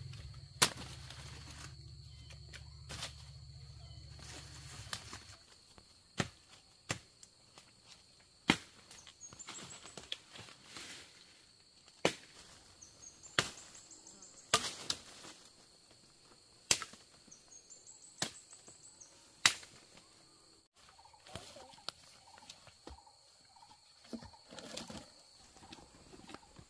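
Machete chopping into wood in sharp single strikes, one every second or two. A steady high insect whine runs throughout, with a few short rising bird chirps and a low rumble in the first few seconds.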